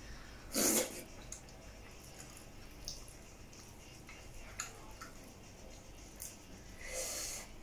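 Close-miked eating sounds: wet mouth clicks and smacks while chewing dhido with nettle soup, with a short loud noisy burst about half a second in and a longer breathy one near the end.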